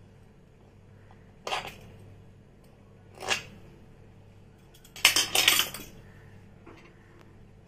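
Brief kitchen handling noises: two short scrapes about a second and a half apart, then a quick cluster of clinking strokes about five seconds in.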